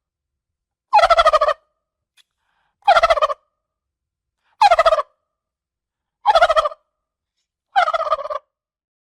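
Male turkey gobbling five times, each gobble a quick rattling call about half a second long, repeated every one and a half to two seconds with silence between.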